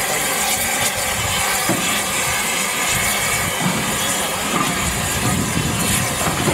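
Z152 steam crane hissing steam as it works, a steady loud hiss, with a low rumble coming in about halfway through.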